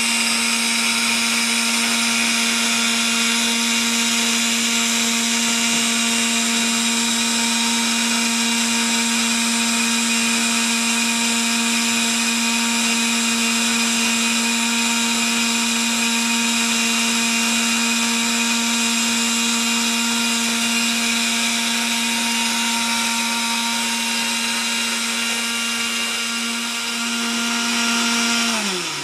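Small battery-powered Meccano electric motor running steadily through its gear train and chain drive, a constant motor hum with a whine of gears. Right at the end it is switched off and the pitch falls as it winds down to a stop.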